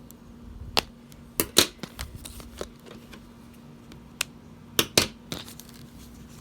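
Scissors snipping plastic ties and handling doll packaging: a run of sharp snips and clicks, several in quick succession about a second and a half in and again around five seconds in.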